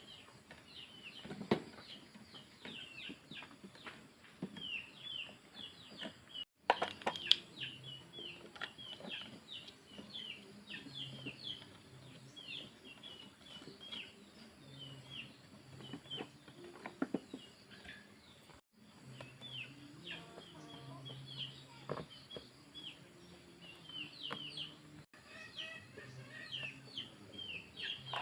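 Many small birds chirping continuously in quick short notes, with a few sharp knocks from handling tools or parts now and then.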